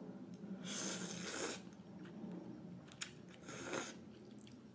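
A person slurping a mouthful of Shin Ramyun instant noodles off chopsticks: one long airy slurp about a second in, then a small click and a second, shorter airy sound near the end.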